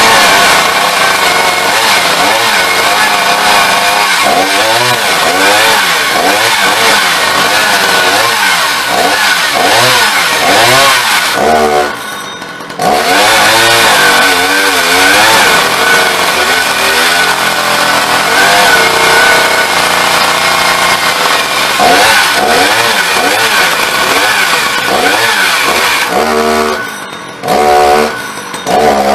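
Two-stroke petrol chainsaw cutting through a log. Its pitch rises and falls continually as the chain bites. The throttle is let off briefly about twelve seconds in and again near the end, then opened up again.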